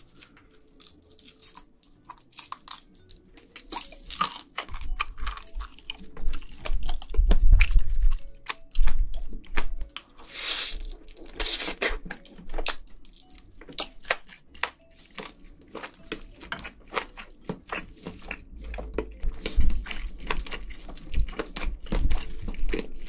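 Close-miked crunching and chewing of a crispy fried chicken wing, with many small crackles of the coating and louder bites in the middle and again near the end.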